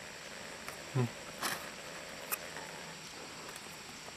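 Steady high-pitched insect chorus, with a few faint clicks and taps in the first half.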